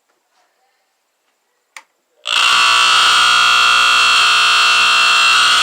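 ESL 709-2 smoke alarm from the 1970s going off: a sharp click, then about half a second later its alarm starts, a loud, steady, continuous tone that keeps sounding.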